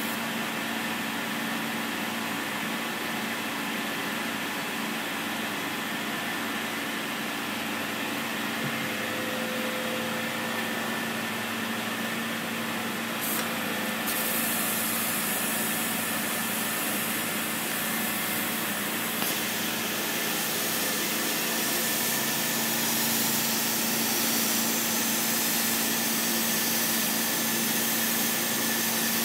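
CNC laser cutter cutting sheet metal: a steady hiss with a constant machine hum under it, growing a little louder and brighter about halfway through.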